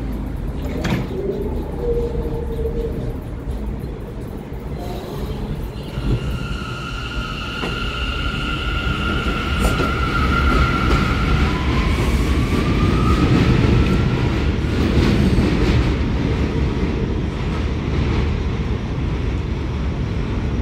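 New York City subway J train pulling out of an elevated station and picking up speed past the listener. Its drive motors give steady high whines, then a tone rising in pitch, over the rumble and rattle of the wheels on the rails, loudest as the cars go by.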